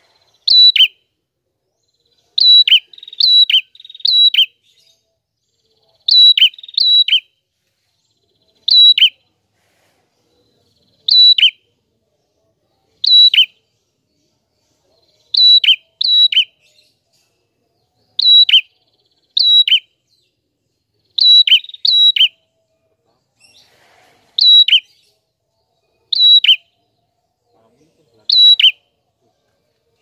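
Prenjak kepala merah, a rufous-headed tailorbird, singing loud, sharp call notes in a repeated series. Each call is a quick high note dropping lower. They come every second or two, sometimes two or three in quick succession.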